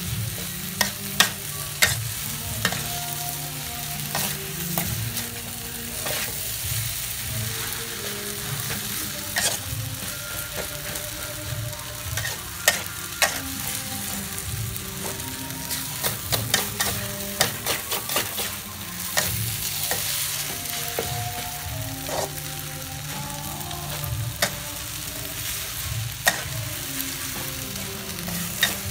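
Glass noodles with dried shrimp and vegetables sizzling as they are stir-fried in an aluminium wok, with a metal spatula scraping and clacking against the pan at irregular moments.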